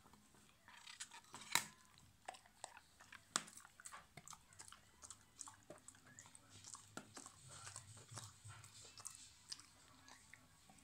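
A dog gnawing and crunching on a hard chew stick: a run of irregular sharp cracks and clicks, the loudest about one and a half seconds in.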